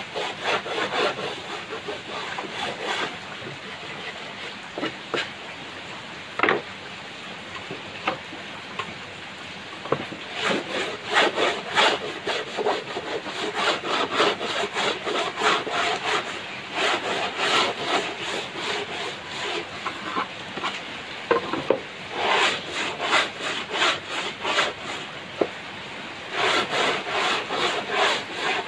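A handled wooden block worked by hand against a wooden plank, scraping rapidly back and forth in runs of several seconds with short pauses and a few single knocks between them.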